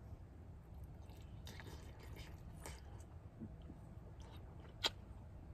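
Faint chewing and mouth sounds of a man eating a forkful of food, with scattered soft clicks and one sharper click near the end.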